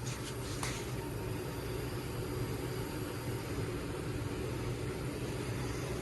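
Heat pump air handler's blower fan running steadily: a low hum under an even rush of air.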